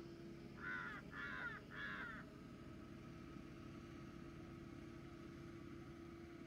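A crow cawing three times in quick succession, about a second in, over a faint steady hum.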